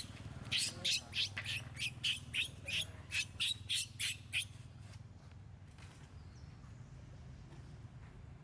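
A monkey giving rapid, shrill repeated calls, about three a second, that stop abruptly about four and a half seconds in; a low steady hum is left after.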